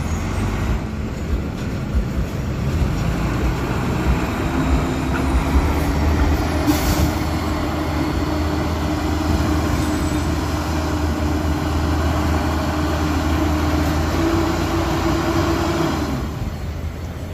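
Rail maintenance machinery running on the track: a steady low engine drone with a held whine on top that steps higher about fourteen seconds in and cuts off near the end.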